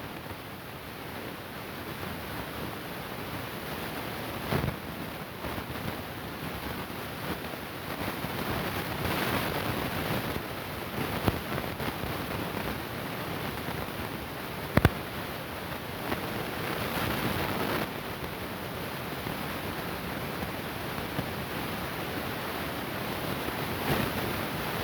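Steady hiss of a faulty recording with no usable sound, broken by a few short sharp clicks, the loudest about fifteen seconds in.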